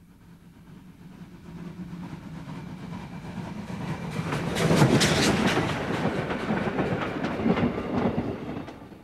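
Train running on rails, with rapid clicking and clatter: it grows louder toward the middle, then fades away near the end.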